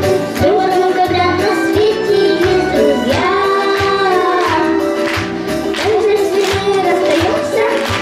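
Children singing a song into microphones over musical accompaniment with a steady bass beat, with one long held note about three seconds in.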